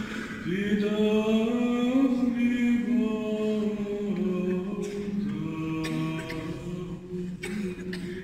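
Unaccompanied liturgical chant: voices singing slow, held notes that step up and down in pitch.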